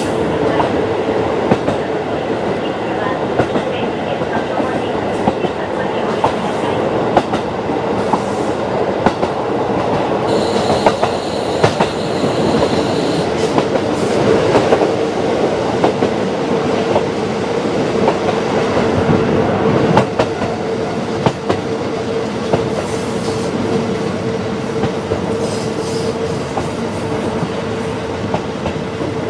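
KiHa 40 diesel railcar running along the line: a steady engine and wheel drone with the clickety-clack of wheels over rail joints. A high-pitched noise rises over it for about three seconds, about ten seconds in.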